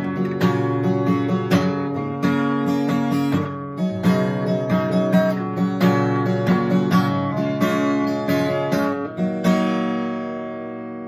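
Solo acoustic guitar playing an instrumental passage of quick picked and strummed chords with a steady pulse. About nine and a half seconds in the attacks stop and a chord is left to ring and fade.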